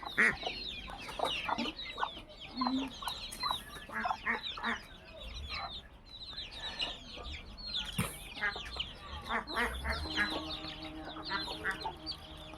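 A flock of chickens calling: many short, high, falling peeps overlapping continuously, with occasional clucks.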